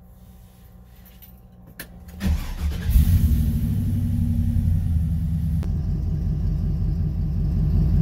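A 1957 Chevy truck's LS3 V8 being started: a few clicks, then about two seconds in the engine cranks and catches, flares up briefly in revs, and settles into a steady idle.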